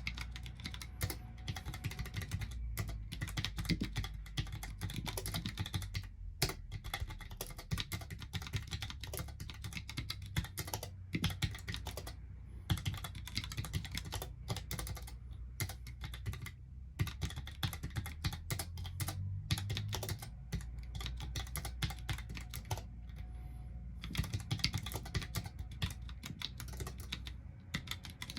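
Continuous fast typing on a Mistel Barocco MD650L split mechanical keyboard with low-profile Cherry ML switches, a steady stream of irregular key clicks with a few brief pauses.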